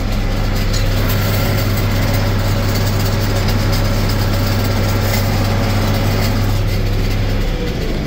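John Deere 4255 tractor's six-cylinder diesel running steadily with the round baler hooked up, heard from inside the cab as a loud low hum. The hum eases near the end.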